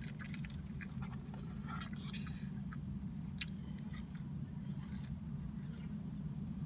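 A person chewing a mouthful of bacon cheeseburger close to the microphone, with many short, sharp mouth clicks scattered through, over a steady low hum.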